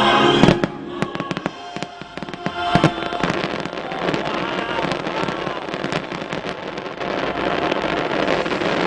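Fireworks exploding: the show's choral music cuts off about half a second in, then a run of sharp separate bangs, giving way after about three seconds to a dense, even crackling of glittering shells.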